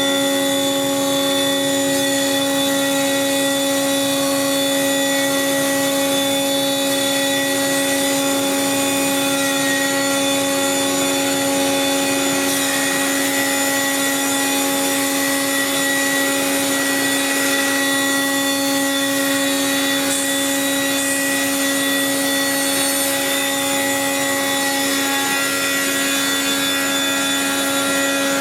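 Leadermac Super Planermac four-sided planer running, its spinning cutterheads giving a steady high whine over the noise of solid wood being planed. The tone shifts slightly a few seconds before the end.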